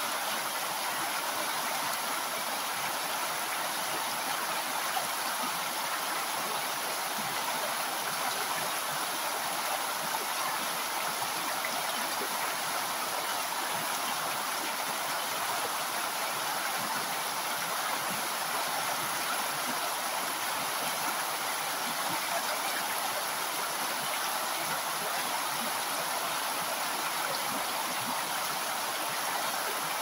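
Mountain river running in a steady, even rush of water, mostly hiss with little deep rumble.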